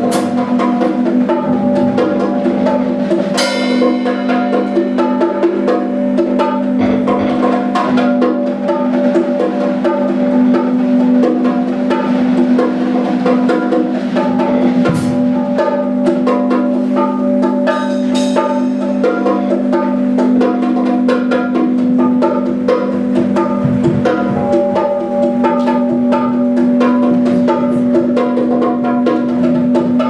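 Live instrumental music: drums and hand percussion playing many quick hits over a steady, sustained low drone from keyboards.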